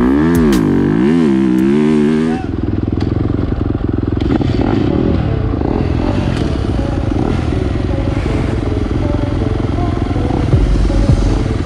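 Dirt bike engine revving up and down as it is ridden on a motocross track, then, after a sudden change a couple of seconds in, running steadily at low revs with the bike stopped.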